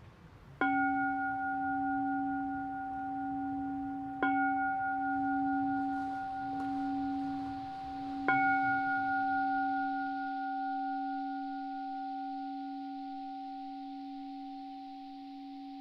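A meditation bowl bell struck three times, a few seconds apart. Each strike rings on in a long, slowly wavering tone that fades gradually.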